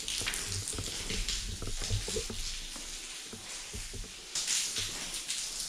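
Steady crackling patter of rain on the building, heard from inside, with scattered low thumps of footsteps on debris-covered floor.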